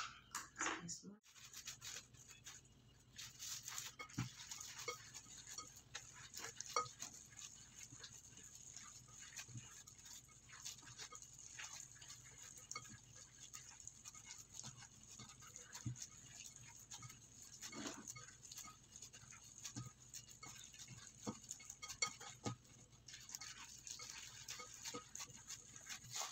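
A gloved hand kneading and squishing raw ground pork and beef mixed with egg and breadcrumbs in a ceramic bowl. Faint, irregular wet squelching and crackling.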